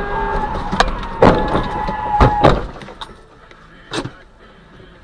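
A car horn held steady for about two and a half seconds, with several sharp knocks over it, loudest around one and two seconds in. After about three seconds only a single knock breaks a much quieter background.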